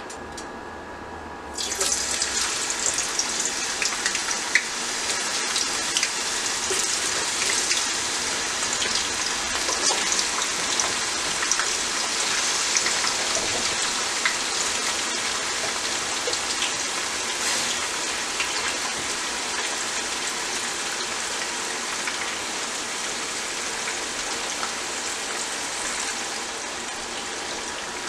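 Raw hand-cut potato strips go into hot oil in a frying pan about one and a half seconds in and start sizzling loudly with scattered crackles. This is the start of frying French fries. The sizzle eases a little toward the end.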